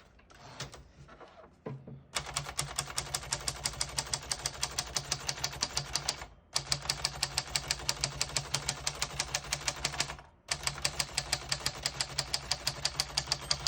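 AMC portable manual typewriter typed in fast, even keystrokes, about seven a second, in three runs with two short pauses, carrying the carriage across the line toward the right-hand margin.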